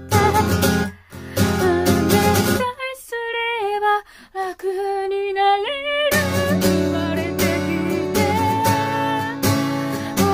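A solo voice singing in Japanese over a strummed guitar. About a third of the way in the guitar stops for roughly three seconds, leaving the voice alone, then the strumming comes back under it.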